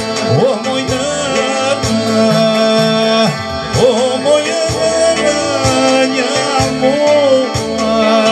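A male voice sings an ornamented, wavering folk melody through a microphone and PA. An electronic keyboard accompanies it with a steady stepping bass and chords.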